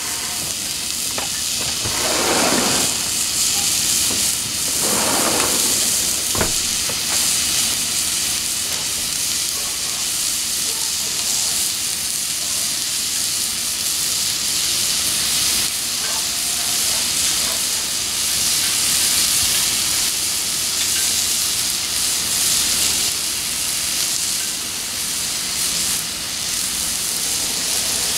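Steak searing on a hot gas flat-top griddle: a steady, high-pitched frying sizzle. Two brief louder swells come a few seconds in, and there is a single click a little later.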